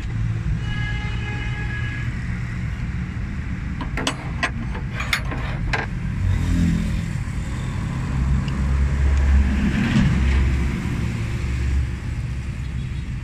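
Steady low rumble of a running vehicle engine, with a few sharp clicks about four to six seconds in.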